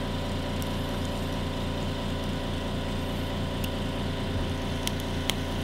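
Steady low electrical-sounding hum, with a few faint sharp clicks, two of them close together near the end.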